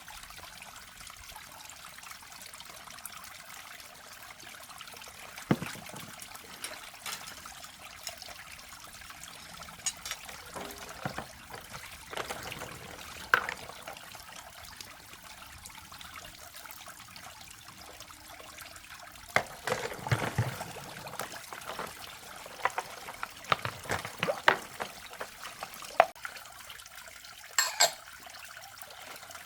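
Water trickling steadily, with scattered clicks and knocks that come thicker and louder in the last third.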